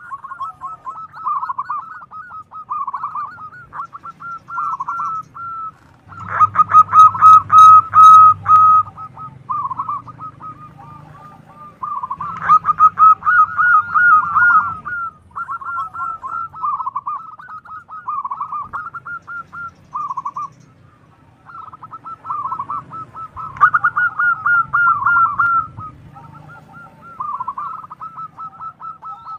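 Zebra dove (perkutut) cooing: fast trilling coos repeated phrase after phrase with short gaps, loudest from about six to nine seconds in.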